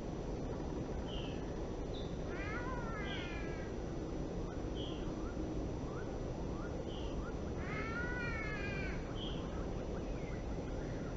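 A bird giving cat-like meowing calls: two drawn-out meows, one about two seconds in and one near eight seconds, with short high chirps repeated every second or two between them, over a steady low background noise.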